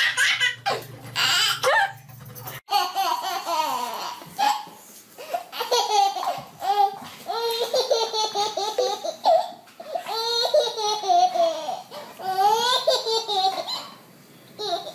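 A baby laughing in repeated bursts of giggles and belly laughs. A steady low hum underneath cuts off about two and a half seconds in.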